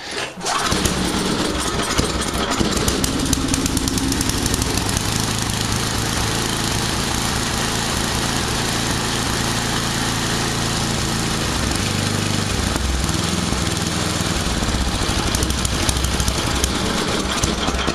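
A snowblower's 10 hp Tecumseh engine, its carburetor freshly rebuilt, catches about half a second in, started with the choke on and the throttle up. It runs steadily, changes a little around twelve seconds in, and cuts off right at the end.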